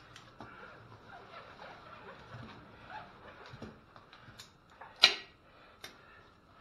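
Hands working ratchet straps and tools on a steel truck wheel and tire: scattered light clicks and rustling, with one loud sharp click about five seconds in.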